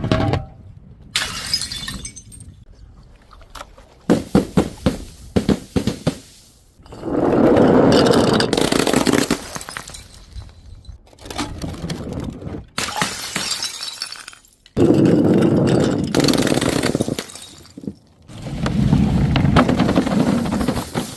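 Glass bottles breaking one after another, each a sharp shattering crash followed by rattling shards, with some breaks running on for a couple of seconds.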